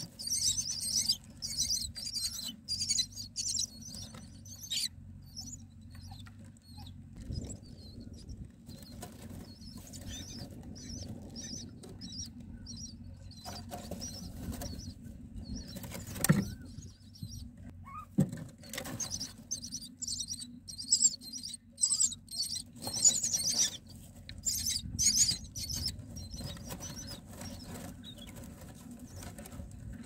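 Common myna nestlings begging with rapid, raspy high-pitched calls in two spells, at the start and again from about twenty seconds in, while a parent feeds them. Scratching, rustling and fluttering in the dry nest straw between, with a sharp knock about halfway through.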